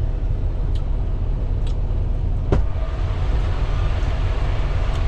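Low, steady rumble of a running semi-truck heard inside the cab, with a few faint clicks and one sharper click about two and a half seconds in.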